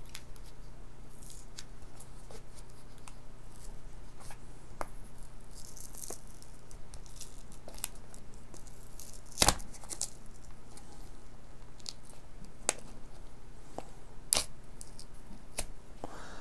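Plastic clicks, knocks and scrapes of solderless breadboard pieces being handled and the snap-off power-rail strip being worked loose. The loudest click comes a little over nine seconds in. A faint steady low hum runs underneath.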